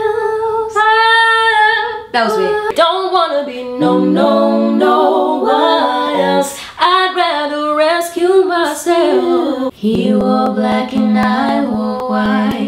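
Women singing a cappella, unaccompanied: a long held note at the start, then melodic runs, and low sustained notes with a higher voice above them near the end.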